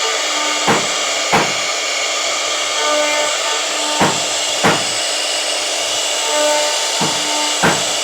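Background music with a slow drum beat: pairs of hits about every three and a half seconds and short held melody notes, over a steady hiss.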